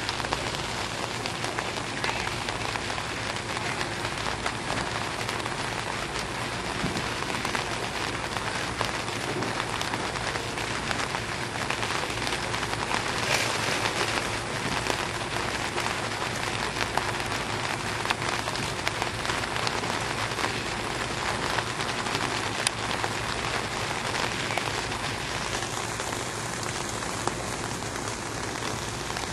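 Steady pattering of rain on a surface, an even hiss full of fine ticks.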